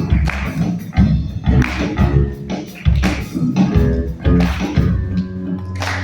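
Live band music led by an electric bass playing a low, moving line over a steady drum beat.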